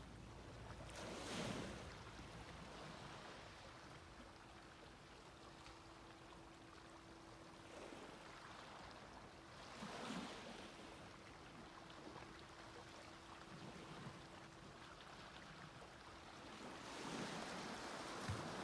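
Small waves breaking softly on a beach, three gentle rushes of surf rising and falling over a low hiss, about a second in, halfway through and near the end.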